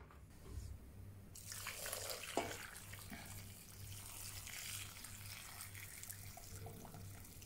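Boiling water poured in a thin stream into a ceramic slow-cooker crock over a whole chicken and herbs, a faint steady splashing that starts about a second in.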